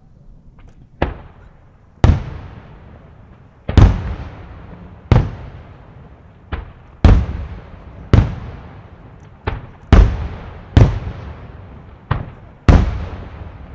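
Firework shells bursting in the air one after another, about a dozen sharp bangs roughly a second apart, each followed by a rolling echo that dies away.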